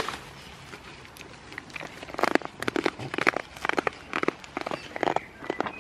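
Goats tearing and chewing leafy plants close up: an irregular run of crisp crunching and rustling strokes that starts about two seconds in.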